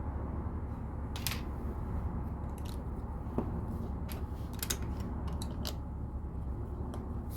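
LEGO bricks being handled and pressed together: scattered short plastic clicks, about a dozen, over a steady low hum.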